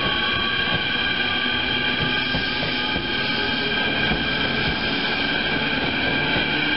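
A train running on rails with a steady high-pitched squeal of several held tones over the rumble of the wheels.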